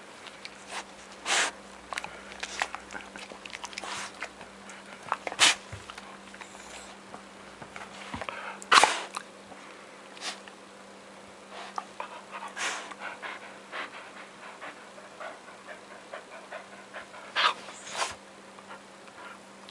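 A pet sneezing again and again: about six short, sharp sneezes spread through the stretch, the loudest about nine seconds in and two close together near the end, with small snuffles and clicks between them. A faint steady hum runs underneath.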